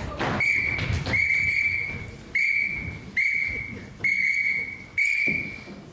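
A whistle blown in six short, sharp blasts, each a high steady tone, about a second apart.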